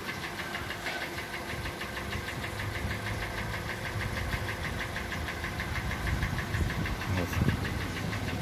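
Kia Sportage's 2.0-litre G4NA four-cylinder petrol engine idling with a fast, even knock, which the mechanic expects to come from scored cylinders.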